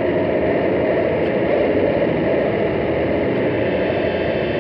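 Korg Radias synthesizer playing a dark ambient drone: a steady, dense, noisy rumble with a hiss higher up and no distinct notes.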